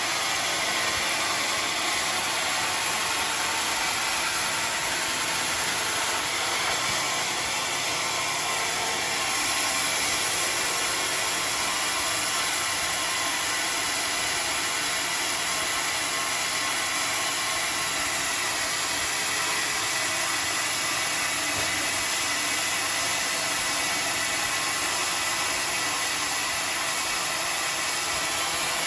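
Homemade sawmill running steadily, an even, unbroken machine whir.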